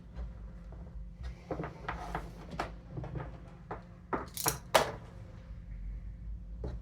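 A knife cutting and scraping the insulation off thick 10 gauge wire: a series of short rasps and clicks, the loudest pair about four and a half seconds in.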